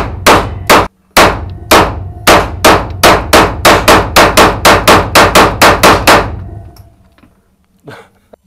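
Semi-automatic pistol fired rapidly in an indoor shooting range: about twenty shots at roughly four a second, each echoing briefly off the range walls, with a short pause after the first three and the string ending about six seconds in.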